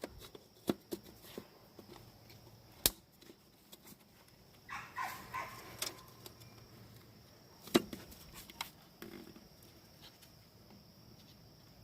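Scattered faint clicks and knocks, the loudest about three seconds in and just before eight seconds, as the old wood chipper is handled. There is a short squeak or whine about five seconds in.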